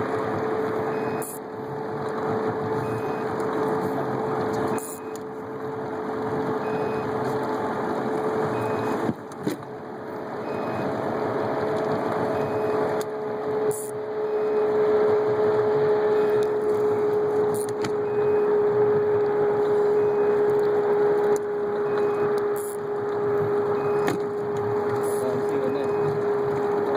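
Boat motor running steadily, a constant even hum that holds one pitch throughout.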